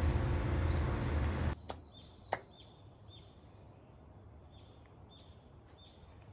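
A steady rushing noise that cuts off abruptly about a second and a half in, followed by two sharp hand claps about half a second apart: the two claps of Shinto shrine worship. A small bird then chirps faintly and repeatedly, a short call about twice a second.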